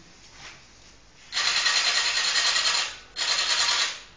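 Small geared motors in a homemade toy robot whirring as its arm swings, in runs: one of about a second and a half starting a second in, a shorter one right after, and a third starting at the very end.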